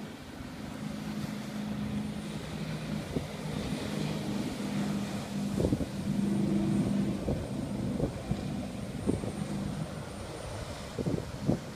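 The 450 hp diesel waterjet of a fast aluminium boat runs at speed with a steady drone, louder a little past halfway as the boat comes nearest. A few short thumps sound in the second half.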